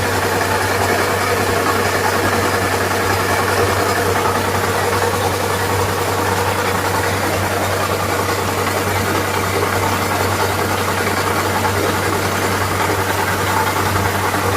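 Kubota rice combine harvester's engine running steadily, an even mechanical drone with no change in speed.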